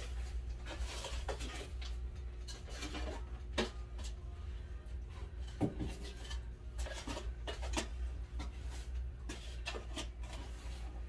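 Scattered light clicks, knocks and rubbing of kitchen utensils and food being handled, over a steady low hum.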